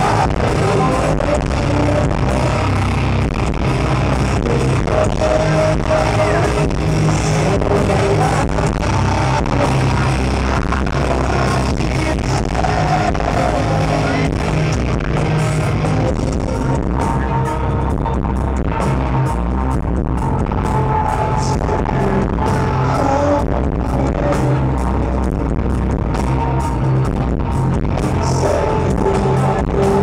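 Alternative metal band playing live through a club PA: electric guitars, bass and steady drum hits, with some singing, heard loud from within the audience.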